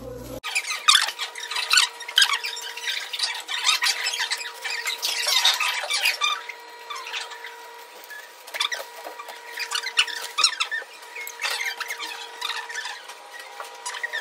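Clear plastic sheeting crinkling and rustling in irregular crackles as it is handled and wrapped around wire mesh, with a faint steady hum underneath.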